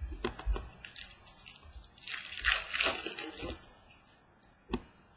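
Trading cards and a pack wrapper being handled: a few light clicks and taps, then a crinkly rustle of about a second and a half, and one sharp tap near the end.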